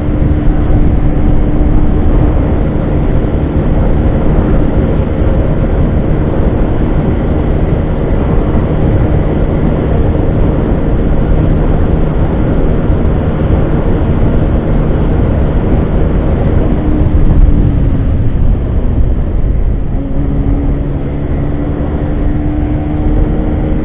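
Yamaha Factor motorcycle's single-cylinder engine held at a steady high drone near top speed, about 140 km/h, with heavy wind rush on the microphone. The engine note sags slightly about two-thirds of the way through, then holds steady again.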